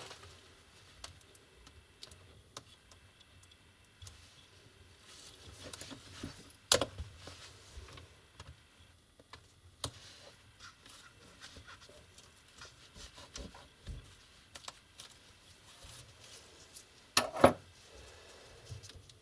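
Gloved hands working a display cable connector on the back of a laptop LED panel: faint rubbing with scattered small clicks and taps, a sharper click about seven seconds in and a louder double tap near the end.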